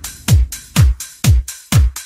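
Instrumental electronic dance music with no vocals: a steady four-on-the-floor kick drum, about two beats a second, each beat a deep hit dropping in pitch, with bright percussion and synth sounds above it.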